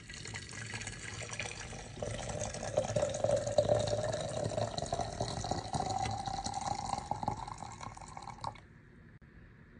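Hot water poured from a kettle into a glass teapot of loose herbal tea, splashing steadily, with the pitch of the pour rising as the pot fills. The pour stops abruptly near the end.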